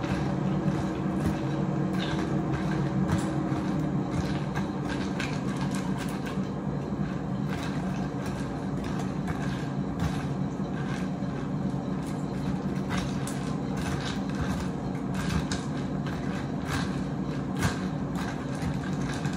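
Ice cubes clicking against the inside of a glass pitcher as iced lemonade is stirred with a plastic straw, over a steady appliance fan hum whose pitch drops slightly about four seconds in.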